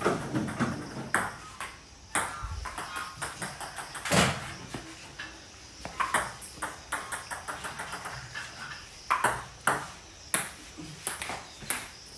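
Table tennis ball clicking off paddles and the table during a rally: sharp, separate ticks coming at an irregular pace, sometimes in quick pairs.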